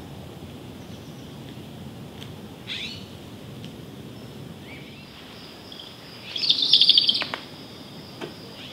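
Young great horned owl giving raspy, hissing begging screeches: a short one about three seconds in and a longer, louder one near seven seconds.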